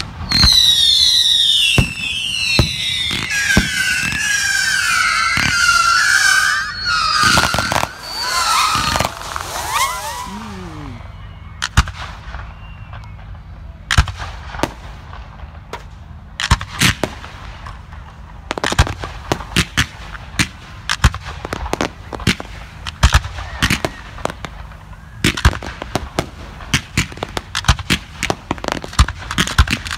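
Aerial fireworks display. For about the first ten seconds several whistling fireworks sound at once, their whistles falling in pitch among loud bangs. After that come sharp bangs and crackling reports, which grow more frequent towards the end.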